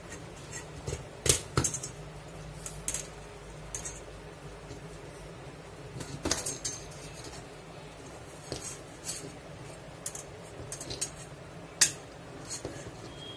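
Irregular small metal clicks and clinks as a hacksaw blade is handled and seated in a small metal clamp with its screw, the sharpest a second or so in and again near the end.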